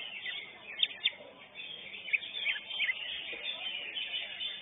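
Cucak hijau (green leafbird) singing: a handful of short, sharp, high whistled notes, with a faint murmur of the contest crowd underneath.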